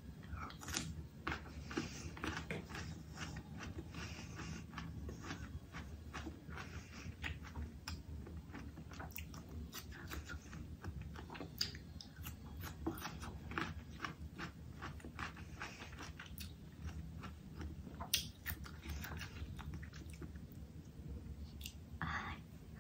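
A person chewing food close to the microphone: a continuous, irregular run of wet mouth clicks and bites, a few each second, with one sharper click about eighteen seconds in.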